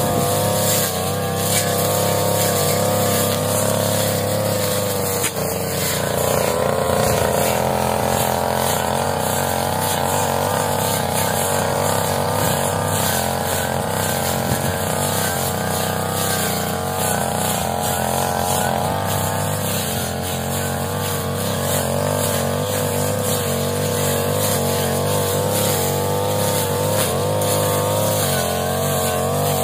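Brush cutter engine running continuously, its pitch wavering slightly as it works through grass and weeds.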